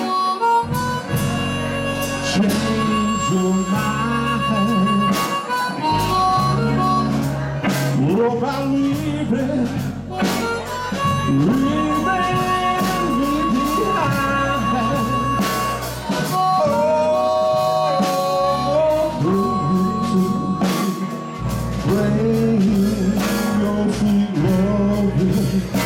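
Live blues band: a harmonica leads with long held and bent notes over electric guitars, bass and drums.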